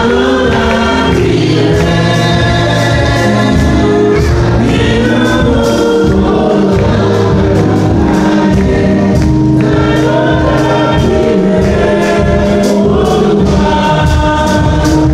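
Church choir singing a gospel song over instrumental backing with a steady beat.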